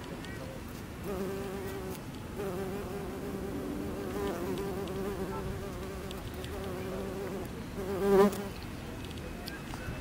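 Bumblebee buzzing in flight close to the microphone: a steady low hum that starts about a second in, breaks off briefly, and swells loudest just after eight seconds as the bee passes close, then stops.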